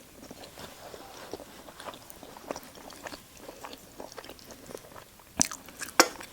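A person chewing cheesy pasta and garlic bread, with many small wet mouth clicks. Two sharp, louder clicks come about half a second apart near the end.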